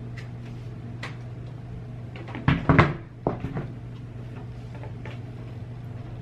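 A few short wooden-sounding knocks and clunks about two and a half seconds in, the loudest one first and a softer one just after, over a steady low electrical hum.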